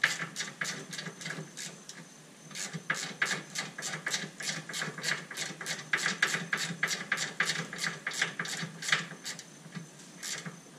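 Hand socket ratchet clicking rapidly, about four clicks a second, as it is swung back and forth to drive a bolt against a stuck brake rotor and press it off the hub. The clicking pauses briefly about two seconds in.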